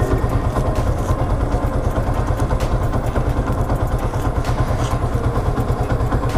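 Yamaha FZ150i motorcycle's single-cylinder four-stroke engine idling steadily at a standstill, a low, evenly pulsing rumble.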